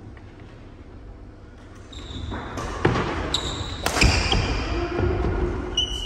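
Badminton rackets striking a shuttlecock in a doubles rally: two sharp hits about a second apart, after a quiet start, with shoes squeaking and feet thudding on the court floor, echoing in a large hall.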